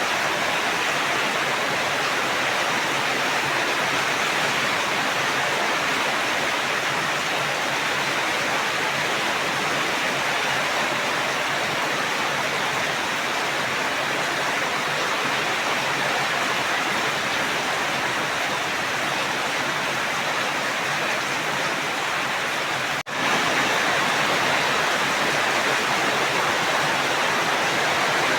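Steady heavy rain, an even hiss of water, with a momentary dropout near the end where the recording is spliced or looped.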